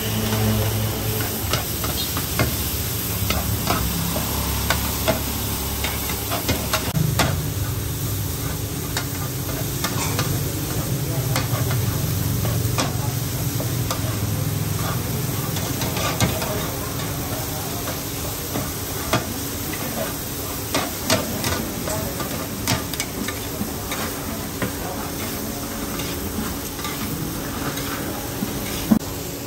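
Two metal spatulas scraping and stirring across a large flat pan as an oyster and taro omelette fries in oil, sizzling steadily, with frequent sharp clicks where the spatulas strike the pan.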